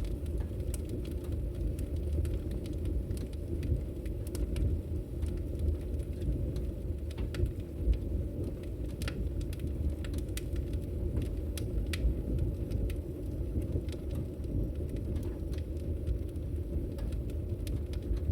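Fire in a fireplace burning, with a steady low rush of flames and many sharp, irregular crackles and pops.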